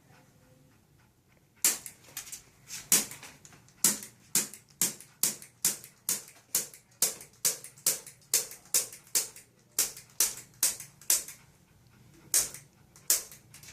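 Spring-loaded chiropractic adjusting instrument clicking about twenty times, a sharp click roughly every half second with a few slower ones near the end, each click delivering an adjustment thrust to the spine between the shoulder blades.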